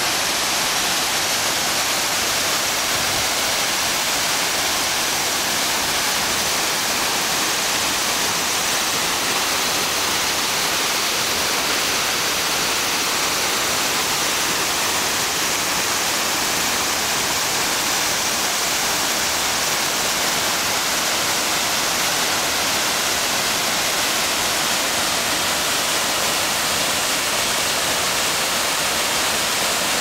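Steady, unbroken rush of Nishi-Shiiya Falls, an 86 m waterfall, pouring into its plunge pool and throwing up spray.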